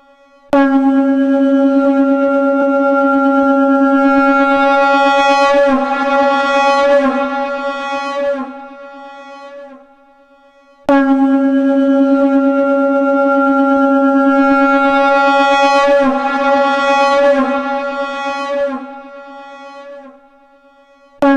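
Shankh (conch shell) sounded in two long, steady blasts of about nine seconds each, pitched near C#, each growing brighter partway through and then fading away before the next begins. A third blast starts right at the end.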